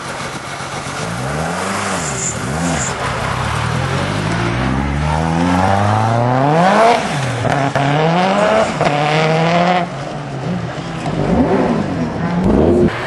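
Turbocharged Peugeot 307 WRC-style rally car engine: a couple of blips of the throttle, then hard acceleration, the revs climbing and dropping sharply at each gear change, with two quick throttle blips near the end.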